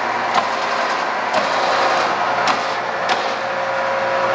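Cincinnati Model 205-12 horizontal milling machine running, its gear drive giving a steady hum with a few sharp ticks, as the table is power-fed inward.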